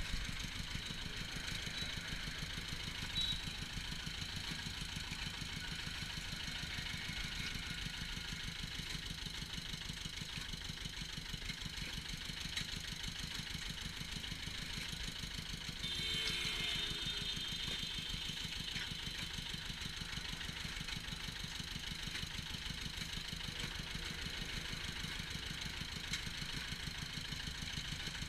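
Engine of a sugarcane crusher running steadily with a rapid, even beat. A short louder burst of noise comes a little past halfway.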